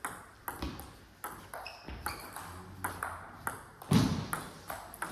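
Table tennis rally: the celluloid ball clicks back and forth off the bats and the table, about two to three sharp clicks a second. A heavier thump comes about four seconds in.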